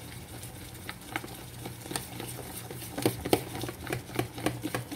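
A wire whisk stirring thick flour-and-water pancake batter in a plastic tub: irregular wet slaps and clicks, coming faster and louder from about three seconds in.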